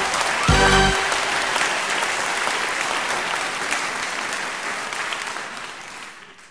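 Audience applauding, with the last of the music stopping about a second in; the applause then fades out toward the end.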